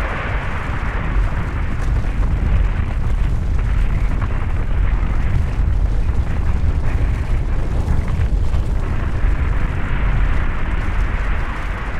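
Avalanche sound effect: a continuous heavy, deep rumble that swells about a second in and holds, with scattered crackles and knocks of tumbling debris on top.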